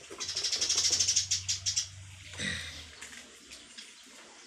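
A bird chirping in a rapid trill of high notes, about a second and a half long, swelling then fading, followed by one shorter call. A low steady hum lies underneath and stops near the end.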